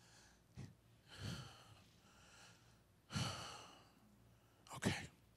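A man breathing audibly into a handheld microphone during a pause: four short breaths, the loudest just after three seconds in.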